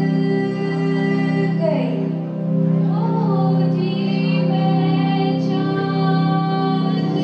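Young women singing into handheld microphones over a PA, holding long notes, with a short dip and slide in pitch about two seconds in.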